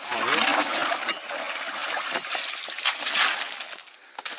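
Water splashing and sloshing in shallow, muddy pond water, with scattered sharp splashes and knocks.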